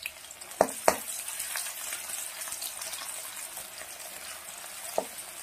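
Sliced onions and garlic sizzling in hot oil in a metal kadai, stirred with a spatula. The spatula knocks against the pan three times: twice just under a second in and once near the end.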